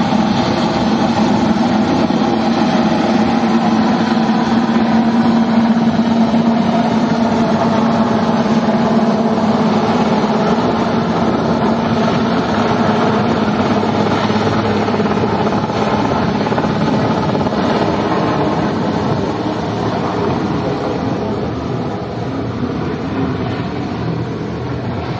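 Westland Sea King helicopter flying overhead with two men slung below on a rope: steady rotor and turbine engine noise with a held hum, growing a little quieter near the end.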